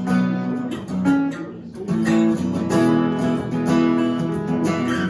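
Two acoustic guitars strumming chords together between sung lines, the chords changing every second or so.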